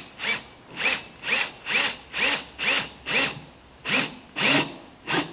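Cordless drill driving a drywall screw through a wooden hull plank in short trigger pulses, about two a second, the motor revving up and dropping back with each pulse.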